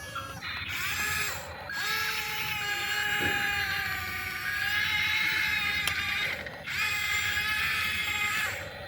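Small electric gear motors of a toy remote-control excavator whining, in several runs that rise in pitch as they start and drop as they stop, with short gaps between them.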